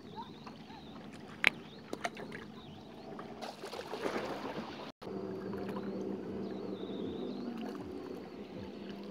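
Lake water lapping at shoreline rocks, with a sharp click about a second and a half in. After a brief dropout midway, the steady low hum of a distant motorboat engine comes in.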